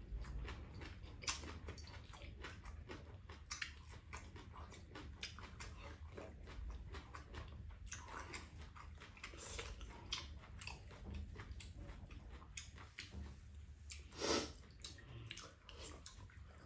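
Two people eating bibimbap and soup with spoons: quiet chewing and mouth sounds, with many small clicks of spoons and chopsticks on bowls. One louder sound, about half a second long, comes about fourteen seconds in.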